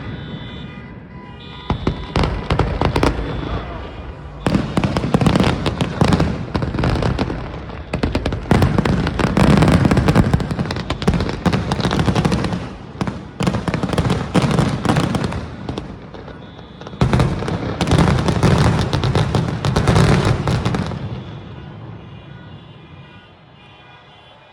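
Fireworks show: rapid volleys of bangs and crackles in dense clusters, heaviest about halfway through, then thinning out and fading over the last few seconds.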